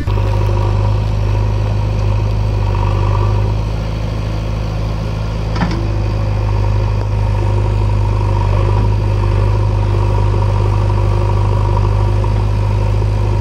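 JCB 3DX backhoe loader's diesel engine running steadily, with a single sharp click about five and a half seconds in.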